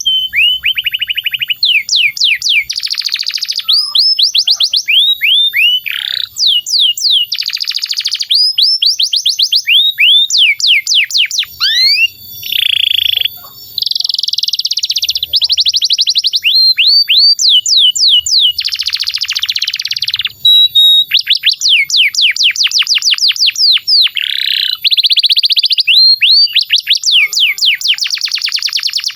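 Domestic canary singing a long, unbroken song. Phrases of rapid trills alternate with runs of repeated fast sweeping notes, switching every second or two, with one brief lower buzzy phrase about halfway through.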